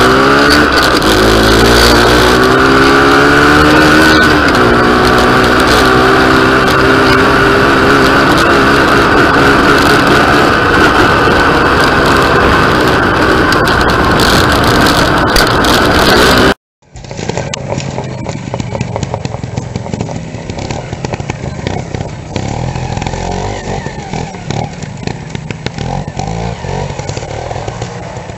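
Vintage trials motorcycle engine heard close up from the bike itself, pulling hard with its pitch rising, dropping at a gear change about four seconds in, then running steadily. After a sudden cut about halfway, a trials motorcycle is heard from farther off, quieter and uneven as the throttle is blipped.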